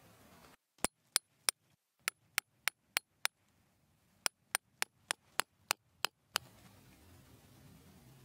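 Snow Peak copper peg hammer driving a tent stake into the ground: about sixteen sharp, ringing strikes in three runs, roughly three a second, with short pauses between the runs.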